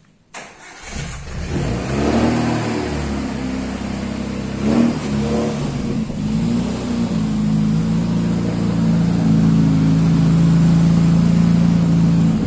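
A Suzuki Sidekick's engine, under repair nearby, starts up about a second in, is revved with a few blips, then is held at steady raised revs.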